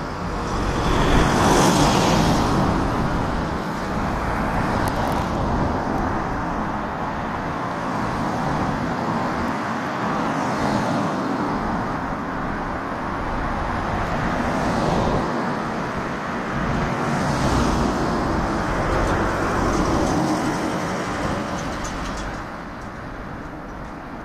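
Road traffic noise, with vehicles passing one after another, each swelling and fading over a few seconds; the first pass, about a second and a half in, is the loudest.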